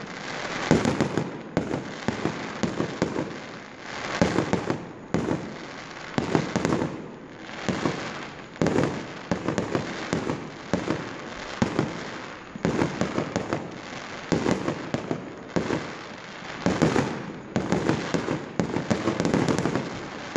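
Fireworks display: aerial shells bursting one after another in a continuous barrage, with bangs about every second and rapid crackling between them.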